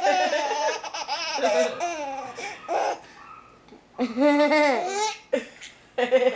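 A baby laughing in three bouts, high-pitched and sliding up and down, with short pauses between them.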